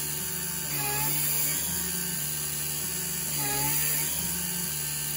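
Taig CNC mill's spindle, running at about 9,000 RPM, with a 3/16-inch end mill cutting aluminum: a steady whine of motor and cut. Twice the pitch sags briefly as the motor strains under load, then recovers.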